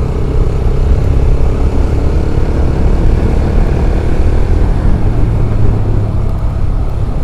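Motorcycle running at a steady pace on the road, with heavy wind rumble on the microphone.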